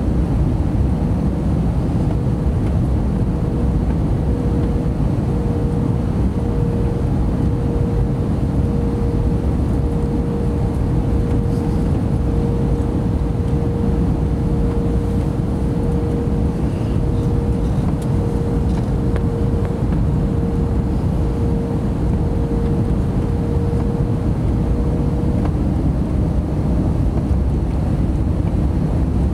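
Steady cabin noise of an Airbus A321neo on final approach, heard inside the cabin at a window seat over the wing: the rush of airflow and the drone of its Pratt & Whitney PW1100G geared turbofan engines. A steady mid-pitched hum runs over it and fades out a few seconds before the end.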